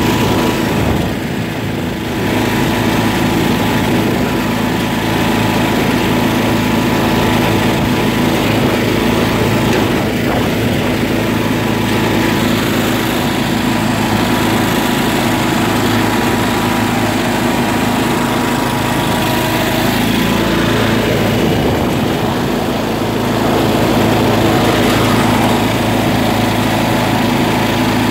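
A John Deere riding lawn tractor's engine runs steadily while the tractor drives along. Its level dips briefly about a second in and swells a little after twenty seconds.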